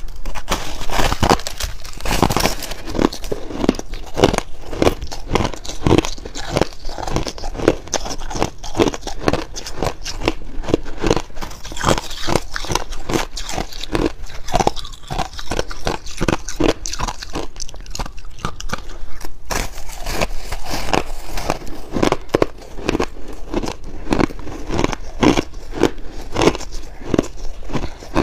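Chunks of packed shaved ice being bitten and chewed, a rapid run of crunches with only a short break about two-thirds of the way through.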